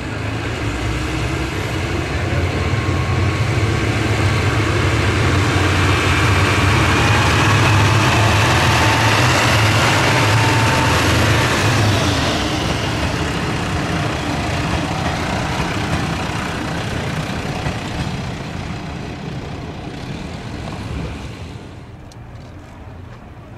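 Sanriku Railway diesel railcars pulling away under power: a deep diesel engine rumble with a faint rising whine above it as the train gathers speed. It then fades as the train moves off, dropping away sharply near the end.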